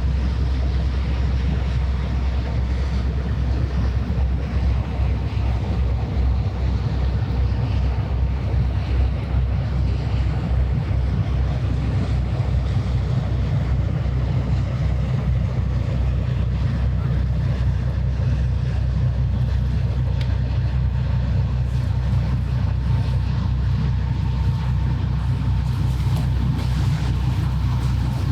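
Low, steady drone of a passing ship's engine, with wind buffeting the microphone and a wash of water.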